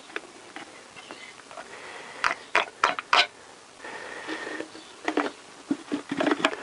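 Plastic squeeze bottle crackling in the hand as it is squeezed and released to suck brake fluid up a clear tube out of a motorcycle brake master cylinder reservoir: a few sharp clicks about two seconds in, then a short sucking hiss of air and fluid drawn through the tube.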